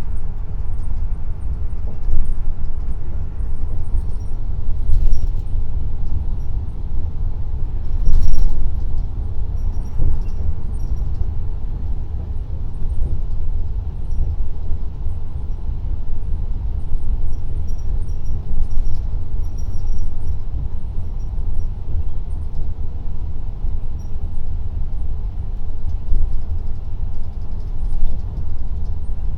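Steady low rumble of a vehicle driving at highway speed, heard from inside the cabin, with a couple of brief knocks about five and eight seconds in.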